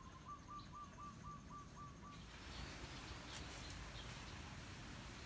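A bird calling: a run of about eight short, evenly spaced notes, each with a slight upturn, lasting about two seconds, then faint outdoor hiss.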